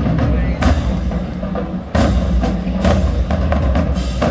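Marching band drumline playing: sharp drum and rim hits over a heavy, steady low end from the bass drums.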